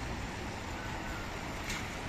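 A car driving past on wet paving stones, its tyres hissing over steady street noise, with a short tap near the end.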